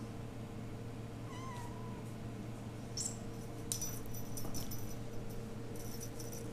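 A RagaMuffin kitten gives one short, faint meow about a second and a half in. From about three seconds on come spells of crinkly rustling as the kittens play with their toys, over a steady low hum.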